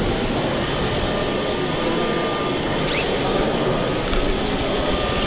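Steady din of a busy exhibition hall, with crowd chatter in the background and a brief high rising whine about three seconds in.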